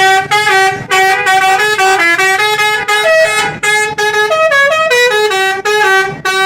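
Telolet musical bus horn playing a melody of short stepped notes, its pitch jumping from tone to tone, in phrases with brief breaks between them.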